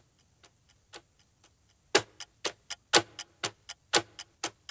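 Clock-ticking countdown sound effect, a steady tick-tock at about four ticks a second, faint at first and much louder from about two seconds in.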